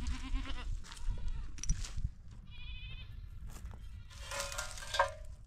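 Livestock bleating several times in wavering, trembling calls: a short one at the start, a high thin one about halfway through, and a stronger, longer bleat near the end.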